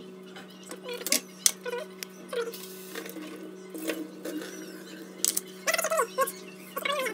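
Kitchen knife slicing a banana into a plastic bowl, making a few sharp clicks and taps as the blade meets the bowl, the loudest about a second and a half in. A steady low hum lies under it.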